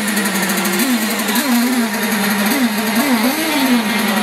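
Radio-controlled model racing hydroplanes running at speed, a high buzzing engine note whose pitch rises and falls several times over a steady hiss.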